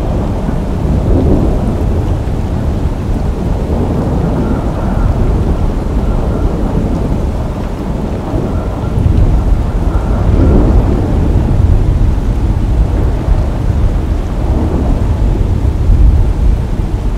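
A deep, continuous rumble like thunder that swells about ten seconds in and again near the end.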